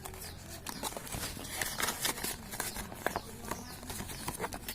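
Irregular light clicks and knocks with faint rustling: hands unpacking a boxed fishing reel, handling the box and its packaging.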